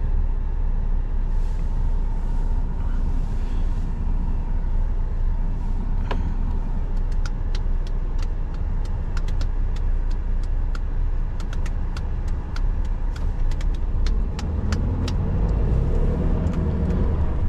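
Cab interior of a Tatra Phoenix dump truck on the move: a steady low diesel engine and road drone, with a run of light, sharp clicks through the middle.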